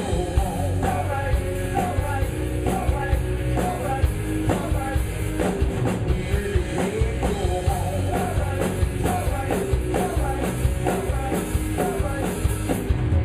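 Live rock band playing a song, with a drum kit keeping a steady beat under the melody.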